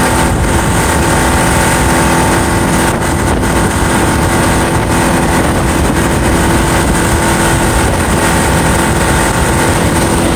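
The outboard motor on a Robalo R160 boat running steadily at planing speed, with the rush of water and wind over the boat.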